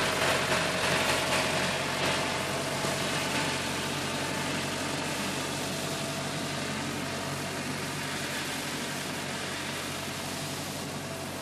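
A farm tractor's engine runs steadily while its rotary implement works the grass, with a broad noisy rush over the engine hum. The whole sound grows steadily fainter as the tractor moves away.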